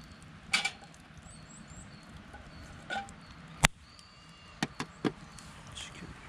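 Scattered sharp knocks and clacks, about six in all, the sharpest about three and a half seconds in, like wood or gear being handled. Faint high chirps sound early on.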